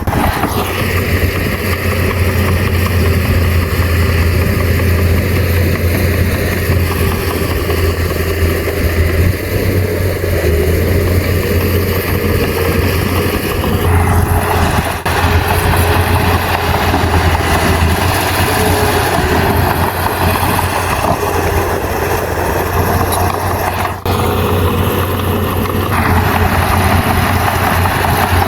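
Bulldozer's heavy diesel engine running steadily with a deep low hum; its sound changes abruptly about halfway through and again near the end.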